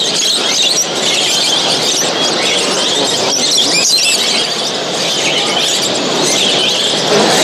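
A dense chorus of many caged songbirds chirping and warbling at once, their calls overlapping continuously over steady background noise.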